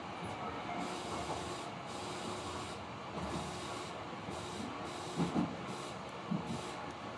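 Tobu 50000 series electric train running between stations, heard from inside the front car: a steady running hiss and rumble with a faint even hum, and a few short clacks of the wheels over the rails about five and six seconds in.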